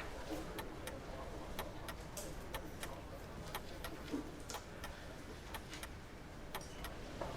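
Café terrace ambience: a low murmur of voices with frequent, irregular sharp clicks and clinks.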